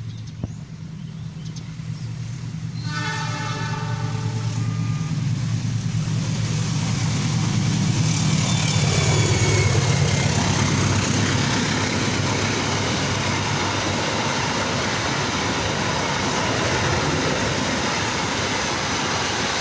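Argo Bromo Anggrek long-distance express approaching and passing at speed. The diesel locomotive's engine drone grows, its horn sounds for two or three seconds about three seconds in, then the locomotive goes by and the carriages pass with a steady, loud rush of wheels on rail.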